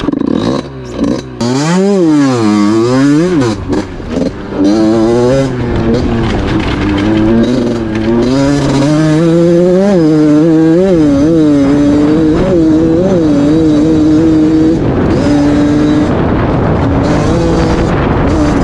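KTM motorcycle engine through a 'trofeo' exhaust. It revs up and down twice, then climbs through the revs in several pulls and holds a high, slightly wavering pitch.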